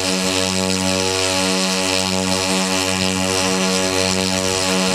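Engines of a large radio-controlled PBY Catalina model flying boat running steadily on the ground, the model held by its wingtips. The sound is a steady hum with a slow, regular pulsing beat.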